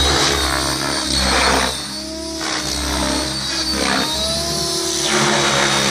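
Electric Blade 700X RC helicopter in 3D flight: the motor and drivetrain whine over the main rotor's whoosh, the pitch rising and falling as the blades load and unload through the manoeuvres. The sound dips briefly about two seconds in.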